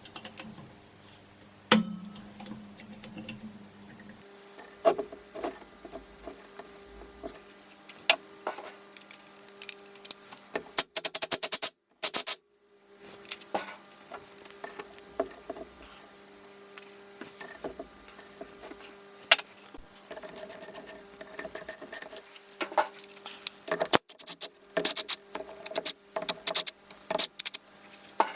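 Hand tools and metal engine parts clicking and clinking during a motorcycle engine teardown, with scattered taps, a rapid run of clicks about eleven seconds in, and busier clicking near the end, over a faint steady hum.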